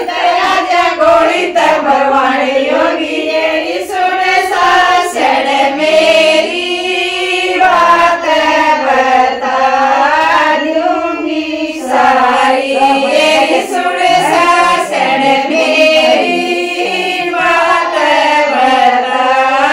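A group of women singing a Haryanvi folk song (geet) together.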